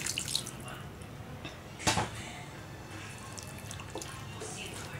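Water poured into a pan of frying lamb spleen and onion-tomato masala, the pouring dying away about half a second in. A single sharp knock comes near two seconds in, then a wooden spatula stirs the wet mixture with faint scraping.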